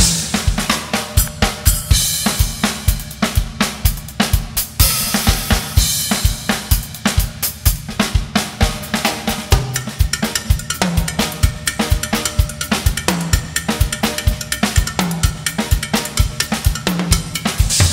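Acoustic drum kit played solo: a dense, steady groove of bass drum, snare and toms under cymbals and hi-hat, a Kurdish dola-style rhythm worked into Latin patterns, with the downbeat (the "one") struck very hard.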